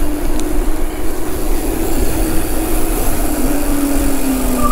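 Electric mountain bike rolling down a dirt trail: steady riding noise of knobby tyres and wind, with a faint hum that slowly drops in pitch.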